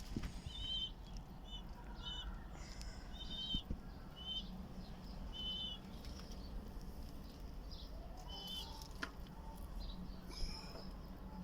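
Birds chirping in short, high notes, repeated about once a second through the first half and once more near the end, with pigeon wings flapping, over a steady low hum.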